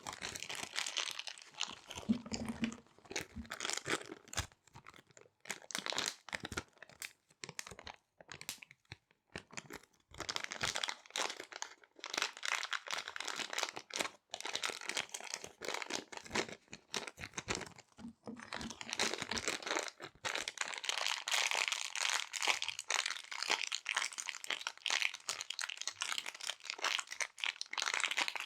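Small resealable plastic bags being handled and crinkled close to the microphone: dense runs of sharp crackling broken by short pauses.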